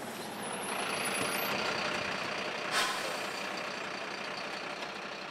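Mercedes-Benz fire engine's diesel running as the truck pulls up and stops close by, with one short sharp burst about three seconds in.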